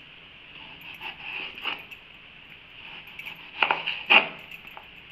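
Knife cutting raw potato on a cutting board: about four sharp chops, the last two louder.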